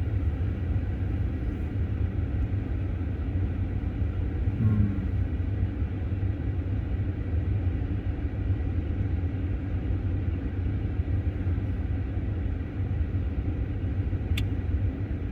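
Steady low rumble inside a parked electric car's cabin with the heater running, and a single sharp click near the end.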